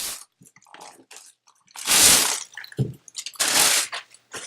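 Product packaging being handled and pulled off a boxed microphone: scattered rustles and light clicks, with two louder scraping swishes about two and three and a half seconds in and a soft thump between them.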